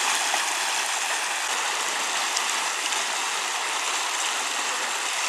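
River water rushing over rocks: a steady, even rush of flowing water with no breaks.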